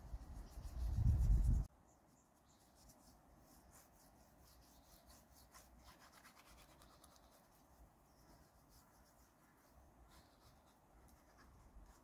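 A loud low rumble that cuts off suddenly after about a second and a half, then faint, soft rubbing and light scratching as a hand rubs spice powder into a raw salmon fillet on a metal tray.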